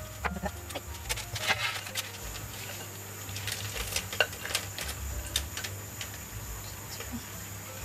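Light clinks and scrapes of cooking utensils against a bowl and dishes, scattered irregularly, busiest about one and a half to two seconds in, as food is gently mixed with a dressing and handled.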